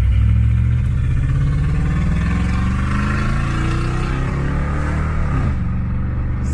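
2001 Chevrolet Suburban's V8 engine running with a misfire, sounding like it's struggling; its pitch wavers a little.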